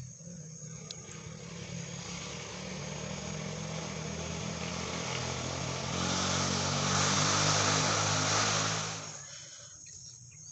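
A passing motor vehicle's engine: a steady hum that gradually grows louder, peaks about six to nine seconds in, then fades away.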